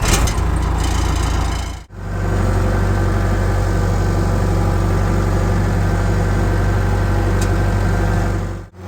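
Backhoe's diesel engine just after being cranked, running loud and rough for about two seconds, then, after a brief gap, idling steadily with a deep, even hum.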